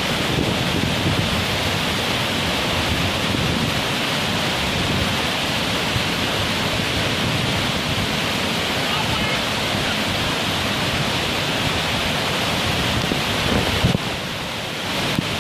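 Steady, loud rush of a waterfall's falling water, with the level dropping briefly near the end.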